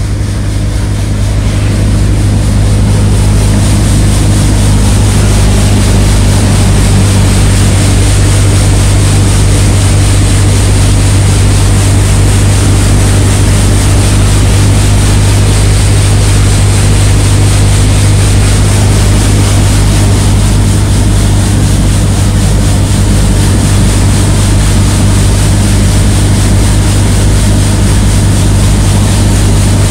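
Multicrop thresher running under load as crop is fed into it: a loud, steady mechanical drone with a strong low hum and a noisy rush on top, swelling over the first couple of seconds and then holding even.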